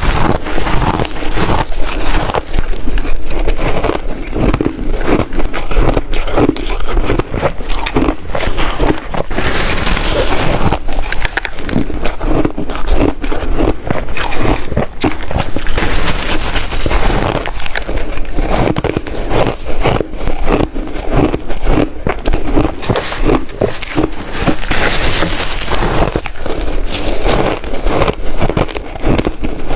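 Ice being bitten and chewed close to the microphone: a dense, unbroken run of crunches and cracks from crunchy shaved ice.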